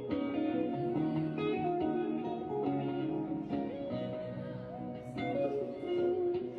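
Background music led by guitar, plucked notes and chords.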